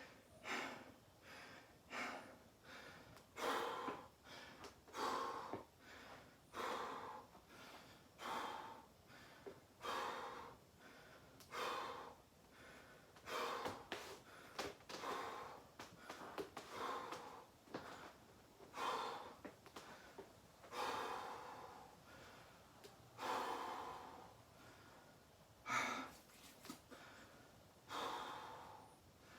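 A person breathing hard and deeply, with a loud breath every one and a half to two seconds, as they recover from a set of burpees.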